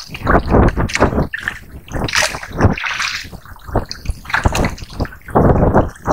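Water sloshing and splashing in irregular bursts.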